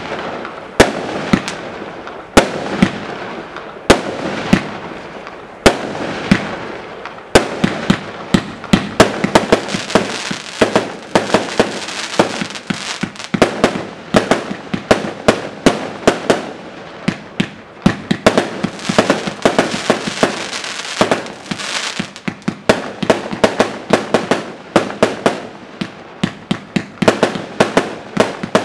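Imperial Lotus IL2001 20 mm single-ignition firework cake firing continuously: sharp reports roughly every two-thirds of a second at first, then from about eight seconds in a much faster run of bangs with dense crackling between them.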